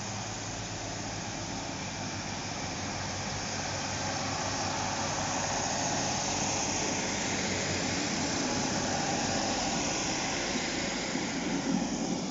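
Class 156 Super Sprinter diesel multiple unit pulling away from a station. Its underfloor Cummins diesel engines run under power, with a steady roar that grows louder as the cars pass close by. A few sharp clicks come near the end.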